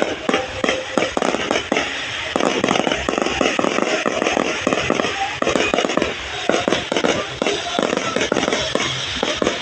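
Fireworks going off in rapid, dense crackling bursts, many cracks a second without a break.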